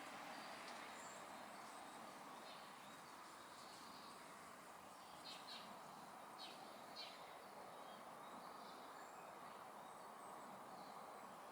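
Faint steady background hum with a few short, high bird chirps, mostly in a cluster around the middle.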